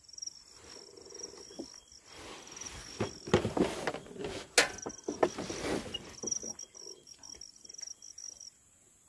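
A steady high-pitched insect buzz, broken off in the middle by a few seconds of close rustling and knocking from a small caught fish being handled, with one sharp click about four and a half seconds in; the buzz returns afterwards and stops near the end.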